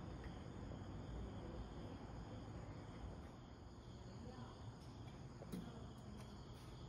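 Faint, steady chirring of crickets in a night-time insect chorus, with a single soft knock about five and a half seconds in.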